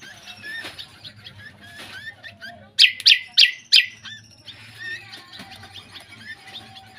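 Songbird calling: four loud, sharp, downward-sweeping calls in quick succession about three seconds in, with many faint chirps and twitters throughout.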